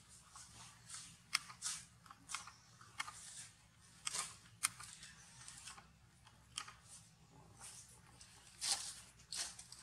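A mother macaque chewing food, giving irregular crisp crunches and clicks.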